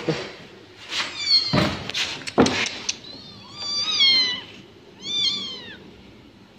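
Newborn kittens mewing: three high, thin cries that rise and fall, with a few sharp knocks of handling in the first half.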